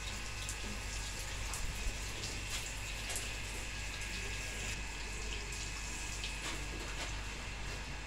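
Water from a hose spraying steadily onto a bare brick wall, wetting the newly built brickwork to cure it.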